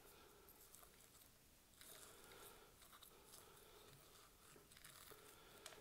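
Near silence, with faint crackling and a few soft clicks from about two seconds in: metal tweezers pressing moss into the gritty soil surface of a small bonsai pot.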